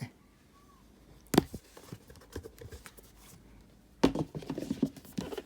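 Handling noises from unboxing a laptop: a single sharp knock about a second in, then a quick run of knocks and rustles near the end as the box and laptop are handled.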